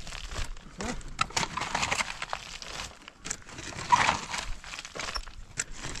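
Shovel blades scraping and digging into stony earth and gravel: irregular crunches and scrapes with sharp clinks of metal on stone, the loudest strike about four seconds in.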